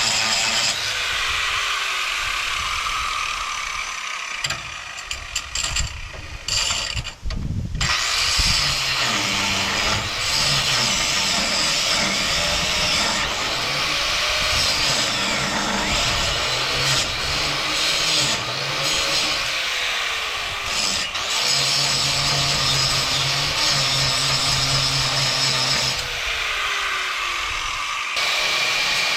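Angle grinder with a cutoff wheel grinding and cutting steel, running loud and steady. Its pitch falls several times as the wheel winds down between cuts.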